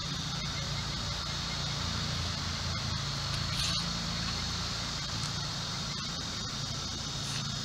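Steady outdoor background with a low rumble and a constant high hum, and a short call about three and a half seconds in.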